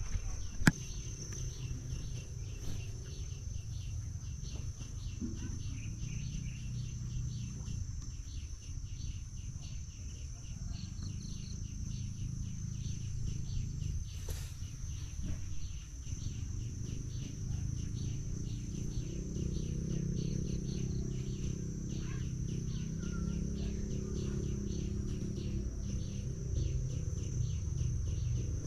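Insects calling in the swamp forest: a steady high-pitched trill with a regular pulsing chirp over it, several pulses a second. A low rumble runs underneath, and there is a single sharp click about halfway through.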